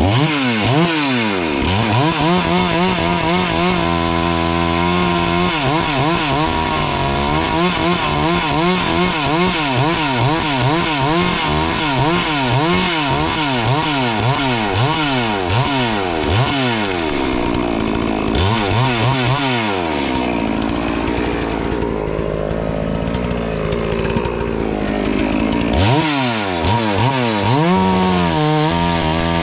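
72cc two-stroke FarmMac F380W chainsaw cutting through a dry maple log, its engine pitch rising and falling over and over as the chain bites. From about two-thirds of the way through the pitch sinks lower and rougher for several seconds under load, then climbs and swings again near the end.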